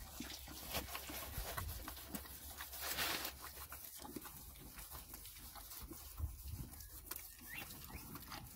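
Horse eating alfalfa pellets from a flexible feed tub: irregular small crunching chews and the muzzle nosing about in the pan, with a brief louder rush of noise about three seconds in.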